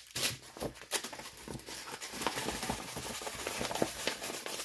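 Diamond painting canvas and its clear plastic packaging being handled: a steady rustling and crinkling of paper and plastic, with scattered light taps.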